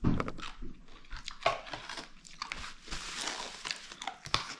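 Plastic food container and its plastic lid being handled: a run of light clicks and crinkly plastic rustling, with a sharper click near the end.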